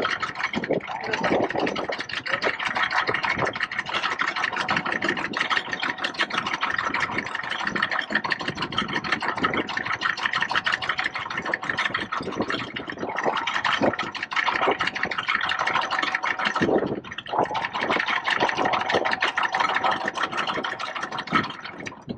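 Sailing yacht's engine running steadily while motoring, with a dense crackling texture throughout.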